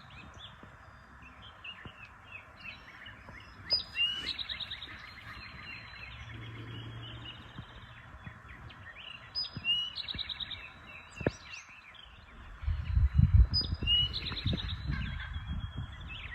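A wild songbird singing the same short phrase three times, roughly every five seconds: a high note, a quick trill, then a buzzy tail, over faint outdoor background noise. Near the end comes a burst of low rumbling, like wind or handling on the microphone.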